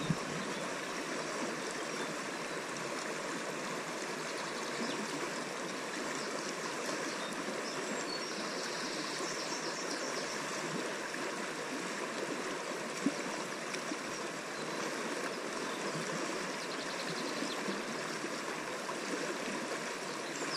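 Fast, shallow river current rushing steadily over stones, heard close to the water surface, with one light click about thirteen seconds in.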